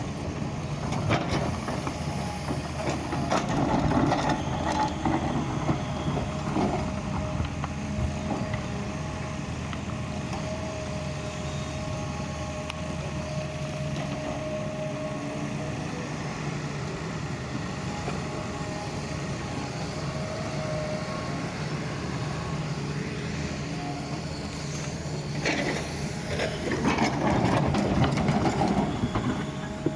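Doosan excavator's diesel engine running steadily while it digs, with a steady higher whine in the middle. Louder, rougher spells of working noise come about four seconds in and again near the end.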